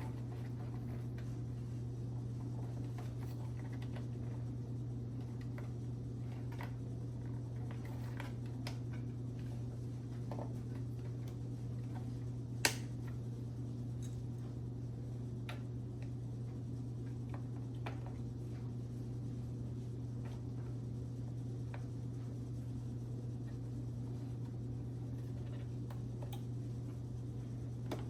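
Scattered small clicks and taps of hands handling parts inside an open desktop PC, with one sharper click about halfway through, over a steady low hum.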